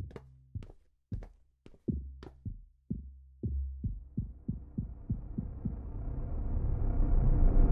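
Horror soundtrack: low heartbeat-like thumps that come faster and faster, under a swell of noise that grows steadily louder to a peak.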